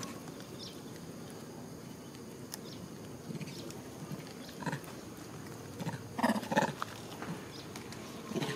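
Macaques giving short calls: a couple of brief ones about halfway through, a louder cluster of several about two-thirds in, and one more near the end.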